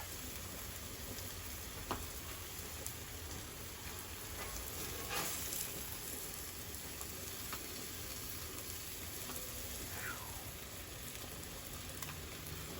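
Food sizzling steadily on a hot flat-top griddle: chicken philly sandwiches frying on the steel cooking surface, with a few faint clicks.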